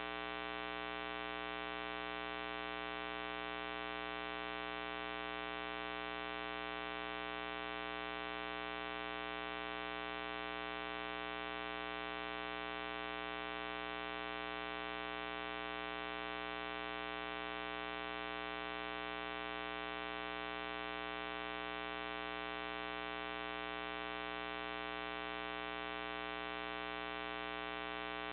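Steady electrical mains hum with a buzzy stack of overtones that never changes, picked up on a security-camera recorder's audio line rather than any sound from the street.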